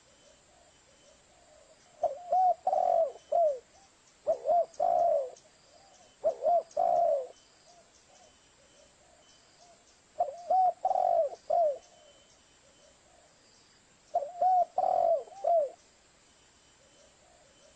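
Spotted dove (tekukur) cooing: five phrases, each a quick run of three or four soft, arching coos, with a longer pause in the middle. It is the dove's song used as a lure call to draw in wild spotted doves.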